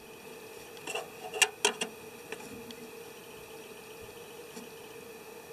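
Steady hum of a Drobo 4-bay storage unit running with its drives spinning, broken by a few light clicks about one to two seconds in.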